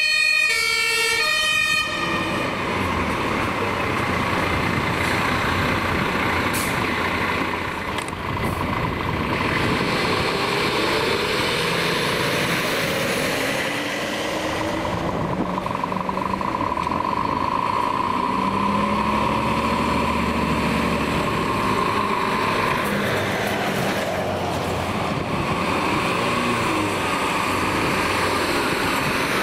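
A two-tone emergency siren sounding briefly, cutting off about two seconds in, followed by the engines of fire engines and an ambulance driving past one after another.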